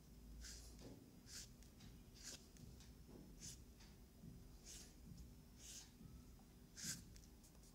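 Brush pen strokes on card: about seven faint, short scratchy swishes as the tip is drawn across the paper, the loudest near the end.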